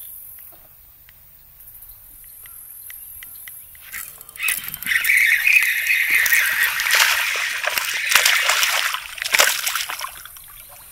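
A hooked bass thrashing and splashing hard at the water surface, beginning about four seconds in and running for several seconds, with a sharp splash near the end.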